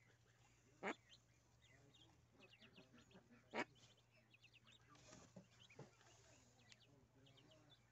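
Faint, repeated peeping of a brood of mallard ducklings, in quick little runs of chirps. Two short, louder sounds stand out, about a second in and about three and a half seconds in.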